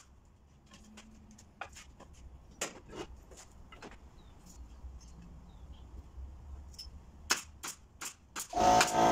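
Pneumatic brad nailer firing nails into wooden strips while building a door frame: a handful of sharp shots spaced irregularly, two louder ones close together late on. Near the end an electric motor starts and runs loudly.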